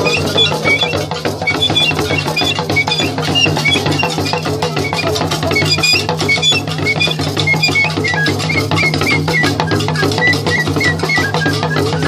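A group of drummers playing hourglass-shaped talking drums and other hand drums in a fast, steady interlocking rhythm, with short high-pitched notes sounding over the drumming.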